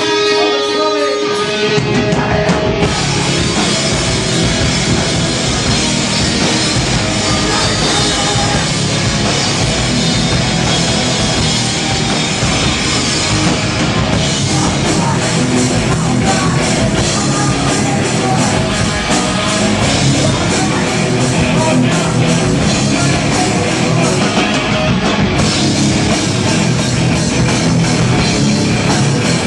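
Hardcore band playing live: a held electric guitar note rings alone at first, then drums and distorted guitars come in about two seconds in and play loud and dense.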